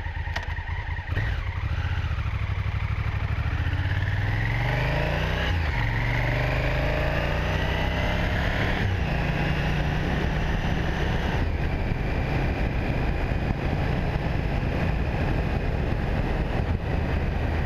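Honda Africa Twin's 1000cc parallel-twin engine pulling away and accelerating, its pitch rising, dropping at two upshifts about five and nine seconds in, then running at a steady cruise.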